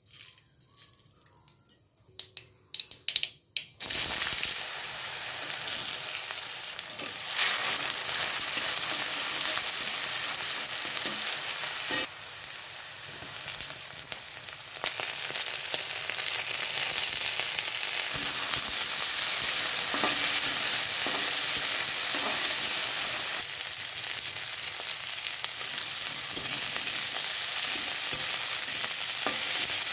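Hot oil in a wok: for the first few seconds mustard seeds and a dried red chilli sputter in scattered pops. About four seconds in, a loud steady sizzle starts as vegetables (broccoli, carrot and potato sticks) hit the oil and are stir-fried, with occasional clicks against the pan.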